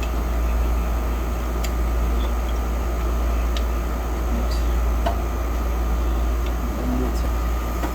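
A few scattered small clicks of computer cable connectors being handled and plugged in, over a steady low hum and a faint steady whine.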